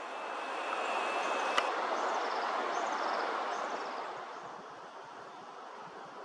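Wind rushing through the bush, swelling and then fading, with a sharp click about a second and a half in.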